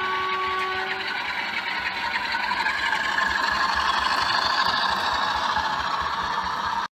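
DCC sound-decoder diesel locomotive on an OO gauge model railway, heard through its small onboard speaker. The low note of its two-tone horn ends about a second in, then its engine sound grows steadily louder as the locomotive draws near, until it cuts off suddenly at the end.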